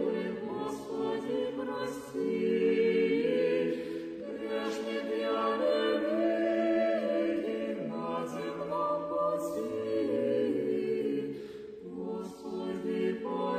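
Choir singing Russian Orthodox liturgical chant a cappella: slow, held chords in several voices, with a short break about twelve seconds in.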